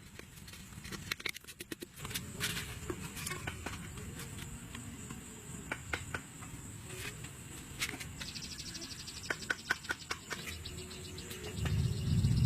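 Insects calling outdoors: a steady high-pitched whine throughout, joined about eight seconds in by a rapid trill that lasts a few seconds. Scattered short clicks and knocks and a low rumble sound underneath, louder near the end.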